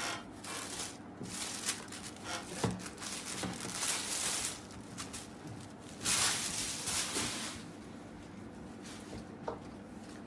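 Soft linen saree fabric rustling as it is unfolded and spread out by hand, in a run of uneven swishes, loudest about six seconds in.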